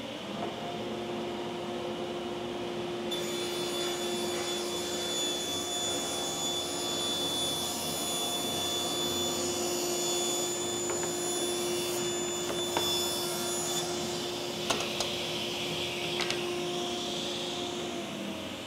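Cabinet table saw running: the motor spins up right at the start and holds a steady hum while the blade rips through a long sheet of plywood for about ten seconds. A couple of knocks follow, then the blade winds down near the end.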